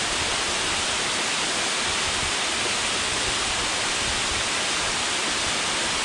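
Waterfall pouring over rock into a plunge pool: a steady, loud rush of falling water.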